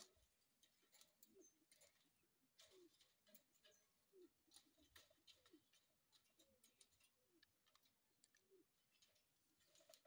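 Near silence, with faint, scattered clicks and scratches from parakeets climbing about a wire cage.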